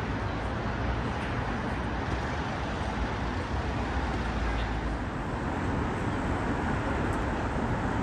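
Steady rumble and hiss of road traffic, an even city ambience with no single sound standing out.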